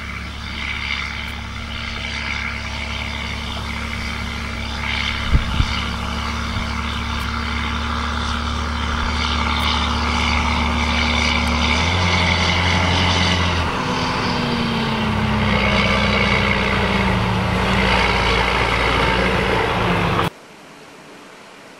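John Deere tractor engine running as it pulls a loaded silage trailer toward the camera and past it, growing slowly louder. The engine note changes about twelve seconds in. Two sharp knocks come about five seconds in, and the sound cuts off abruptly near the end.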